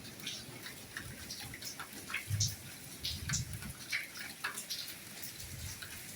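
Soft rain falling, with a steady hiss and many separate drops ticking and dripping close by.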